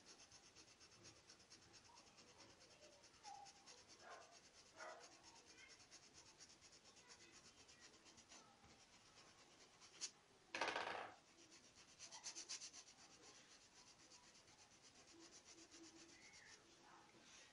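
A paintbrush scrubbing paint into terry towel fabric through a stencil, giving faint, fast, even scratching. A click sounds about ten seconds in, followed by a brief louder scrape, the loudest moment.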